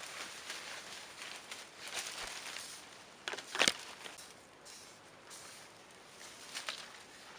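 Leaves rustling and twigs cracking as a tree branch is gripped and pulled down by hand, with a few sharp cracks about halfway through, the loudest a single snap.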